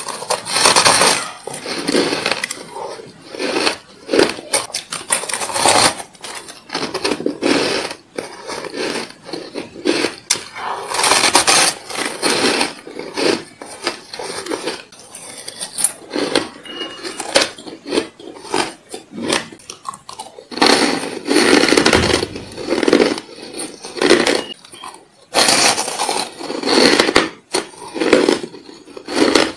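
Close-up crunching of a person biting and chewing frozen frost and ice chunks: clusters of crisp, brittle crunches, bite after bite, with short pauses between.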